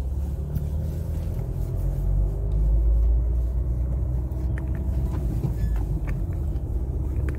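Car driving slowly, a steady low engine and road rumble heard from inside the cabin, swelling slightly a couple of seconds in.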